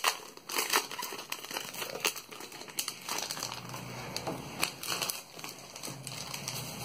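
Foil wrapper of a Pokémon booster pack crinkling and trading cards being handled, a run of irregular light rustles and clicks.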